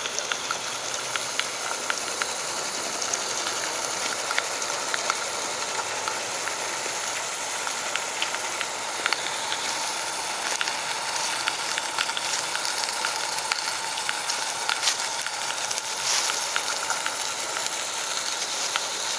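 Pair of live-steam model Shay geared locomotives running: a steady hiss of steam with scattered small clicks.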